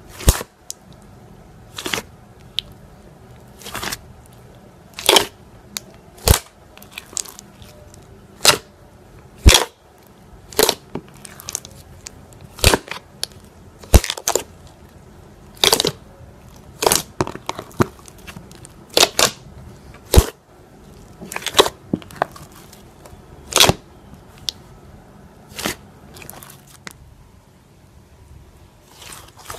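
Thick white slime being squeezed and pressed by hand, giving sharp crackling pops as trapped air is squeezed out, roughly one every second or two.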